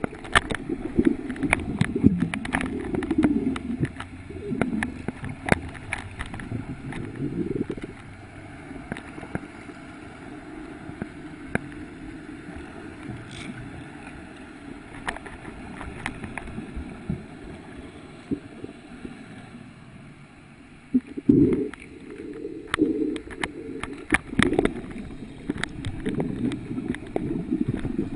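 Muffled underwater water noise picked up by a snorkeler's camera: low sloshing and gurgling surges with scattered clicks and knocks. It eases off through the middle and surges again about three-quarters of the way through.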